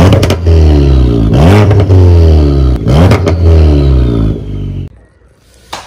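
Car engine revving hard, its pitch dipping and then sweeping sharply up twice, then cutting off about four and a half seconds in.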